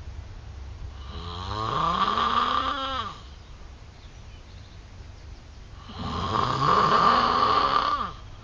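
A man snoring: two long snores about two seconds each, the second starting about five seconds after the first.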